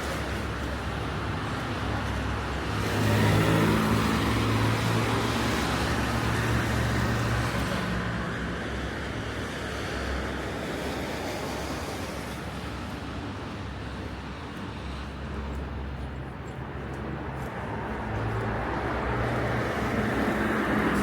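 City road traffic: cars and other motor vehicles passing on a street, with a steady engine hum and tyre noise. One vehicle passes loudest about three seconds in, and another draws near toward the end.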